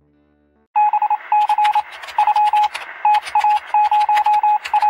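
Morse-code signal sound effect: a single steady beep keyed on and off in long and short pulses over crackling radio static, starting about three-quarters of a second in.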